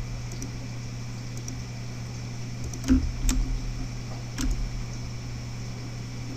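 Steady low electrical hum of the recording setup, with a few sharp computer mouse clicks as surfaces are selected on screen, about three seconds in and again a second or so later.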